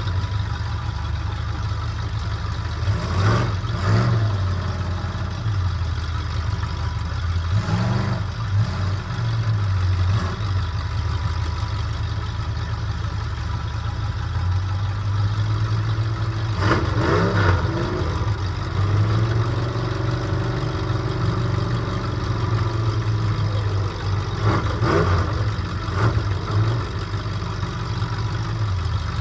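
Metric Caddy demolition derby car's engine heard from inside the stripped cockpit, running and revving up several times, with bursts of clatter from the car's loose body and cage at the revs.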